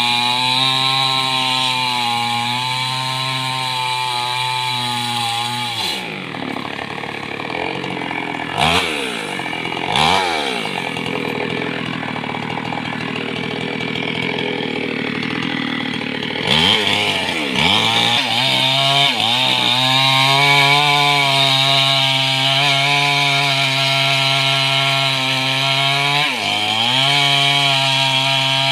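Large two-stroke chainsaw making the felling back cut in a mahogany trunk, the engine running steadily under load. In the middle it is revved up and down several times, then it settles back to a steady cutting note for the last ten seconds or so, with a brief dip near the end.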